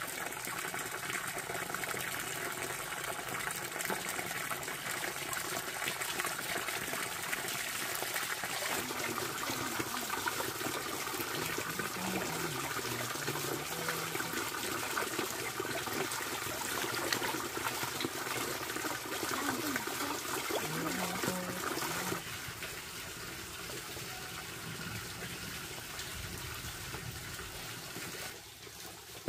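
Water running and splashing steadily, becoming quieter about three quarters of the way through.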